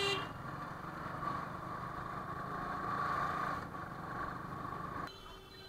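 Motorcycle engine and road noise while riding, steady, swelling slightly about three seconds in. About five seconds in it drops quieter and a faint steady tone comes in.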